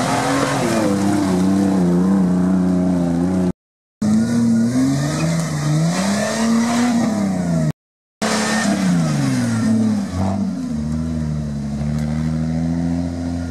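Jeep Wrangler's diesel engine revving up and falling back repeatedly as it drives off road. It comes in three stretches, each broken off abruptly by a short silent cut.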